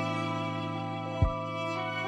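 Slow, gentle instrumental background music with long held notes, and one soft low thump a little over a second in.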